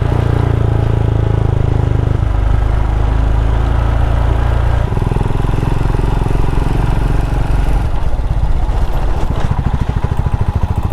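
Royal Enfield Himalayan's single-cylinder engine running under way on a dirt trail. The engine note shifts about two seconds in and again about five seconds in.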